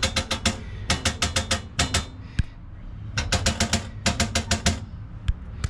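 A loose metal part on the underside of a 1994 VW Kombi being worked back and forth by hand, giving several runs of rapid metallic clicking. The owner takes it for the likely source of the tin-on-tin knocking the van makes over potholes.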